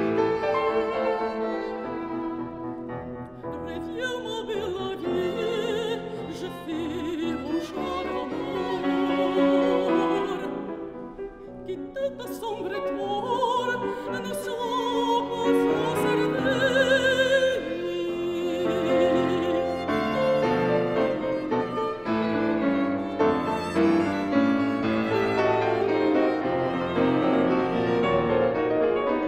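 Mezzo-soprano singing a classical art song with a wide vibrato, accompanied by grand piano and violin.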